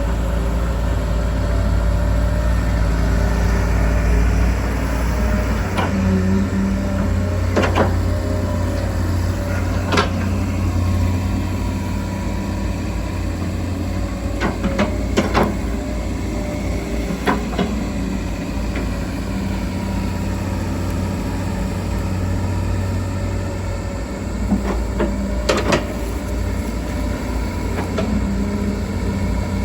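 Hydraulic excavators' diesel engines running steadily, working under load, with scattered metallic clanks and knocks from the bucket and arm.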